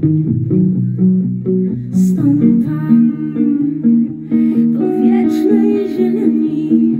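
Live band music: an electric guitar picks a steady, repeating pattern of notes, and a woman's singing voice comes in about two seconds in.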